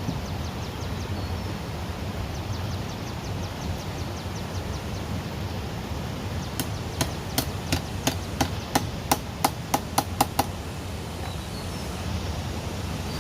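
A blade chopping: about a dozen sharp strikes, roughly three a second, start about halfway through and stop after about four seconds. Under them runs a steady rushing outdoor background.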